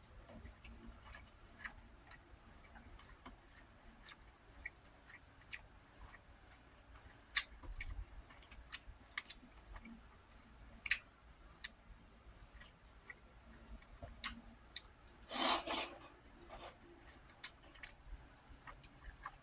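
Close-miked eating: scattered wet mouth clicks and smacks of chewing, with one louder noisy burst lasting about half a second some fifteen seconds in.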